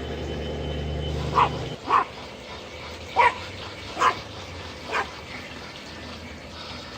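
A dog barking five times, single short barks spaced roughly a second apart. A low steady hum underneath stops about two seconds in.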